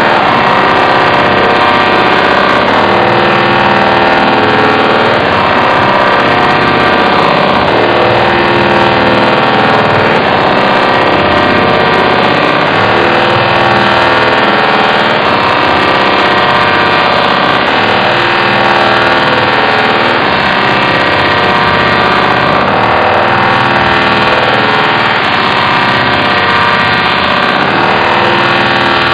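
Robot vocoder effect from the Voice Changer Plus app ('Robot 2'), slowed to half speed: a continuous, loud, buzzing machine-like drone with a pattern that repeats every two to three seconds.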